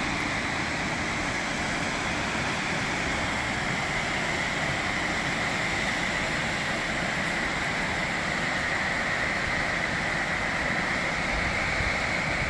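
Steady, even rushing of a distant waterfall far below.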